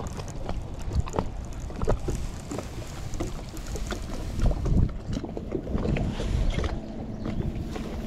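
Small waves slapping against a boat's hull in irregular knocks, with gusts of wind buffeting the microphone.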